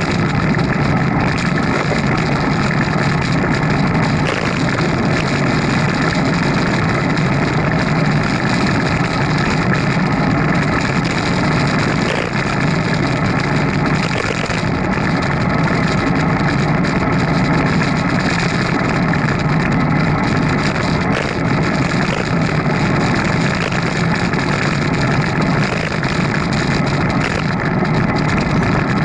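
Steady, unbroken riding noise from an action camera on a moving bicycle: wind on the microphone mixed with rolling and road noise, with a faint steady hum throughout.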